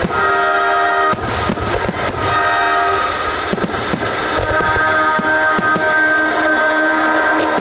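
Orchestra playing long held chords, over a string of sharp bangs and crackle from firework shells bursting overhead.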